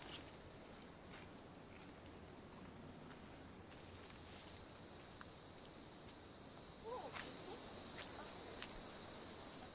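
Tropical forest insects keep up a high, steady drone with a faint regular pulse, which grows louder about seven seconds in. A few faint clicks come through under it.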